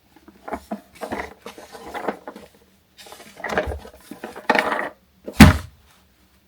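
Hard plastic toy bus being handled, with irregular clattering and knocking and one loud knock near the end.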